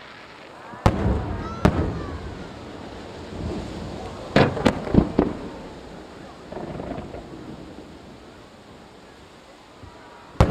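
Aerial firework shells bursting: two sharp bangs about a second apart, then a quick run of four about four seconds in, and one more near the end, each followed by a rolling rumble.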